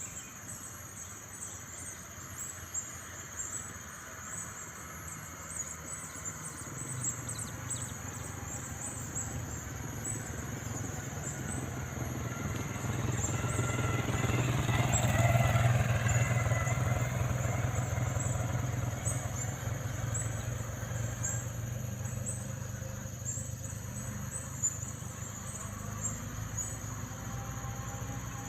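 A vehicle engine running steadily, growing louder to a peak about halfway through and then easing off again, with a faint steady high-pitched whine and ticking over it.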